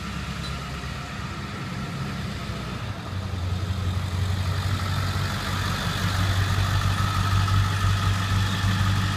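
Diesel pickup truck engine running as it pulls up close, getting louder about three seconds in, then a steady low idle.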